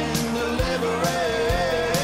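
Background music: a song with a singing voice over a steady drum beat and bass.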